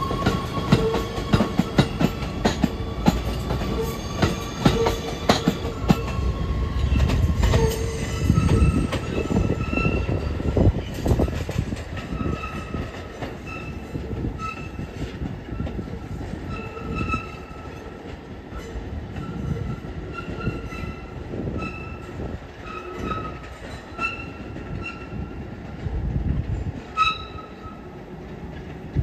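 New York City Subway shuttle train pulling out and passing close by: a quick run of wheel clicks over the rail joints with a steady whine. For the second two-thirds it grows fainter as it moves away, with short, repeated wheel squeals as it takes the curved switches.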